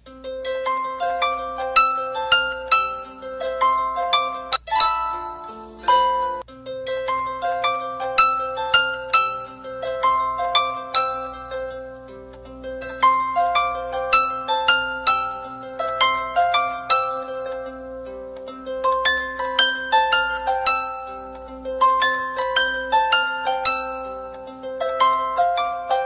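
Instrumental background music of plucked-string notes in quick rising runs over a steady held note, with a short flourish about five seconds in.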